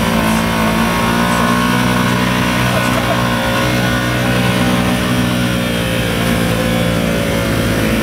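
ATV engine running steadily at high revs while the quad is stuck in deep mud, its wheels spinning as people push it free.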